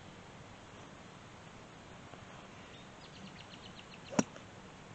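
A golf driver striking a ball off the tee: one sharp, loud crack about four seconds in. Just before it, a bird gives a quick run of high ticking notes over faint outdoor background.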